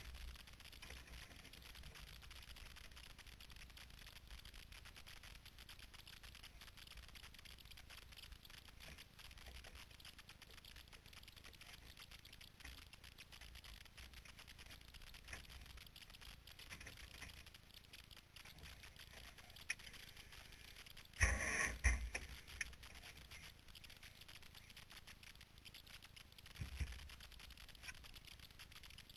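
Low, steady background noise with the car's engine silent. About two-thirds of the way in come a short burst of loud knocks and rustling, and near the end a softer thump, as of the onboard camera being touched.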